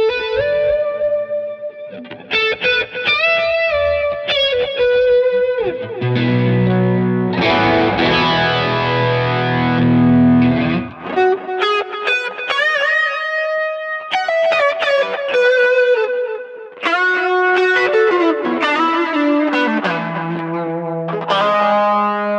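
Electric guitar played through effects pedals with some drive: single-note lines with string bends, and a stretch of sustained low chords in the middle. The signal is heard first through the microphones on the amps and switches partway through to the CTC Sidekick's DI output with its speaker simulator.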